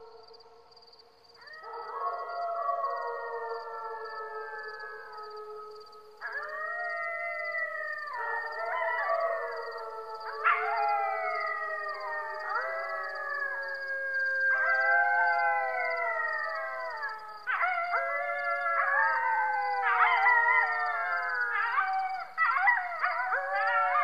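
A chorus of canine howls. One long howl begins about a second and a half in, and more voices join one after another until several overlap, each gliding up and down in pitch. A faint steady high-pitched tone lies underneath.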